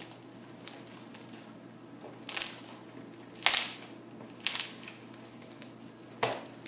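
Homemade glue slime being kneaded and squeezed by hand, giving four sharp popping clicks about a second apart.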